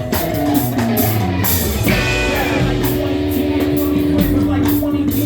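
Rock band playing an instrumental passage of an original song: guitar over a drum kit, with held notes and steady drum and cymbal strikes.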